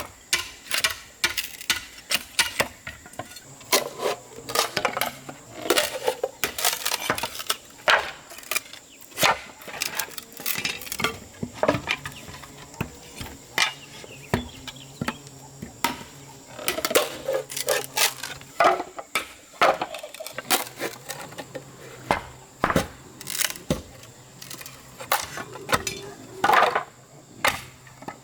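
Irregular knocks and clinks from hand work, several a second and unevenly spaced, with a faint steady high tone behind them.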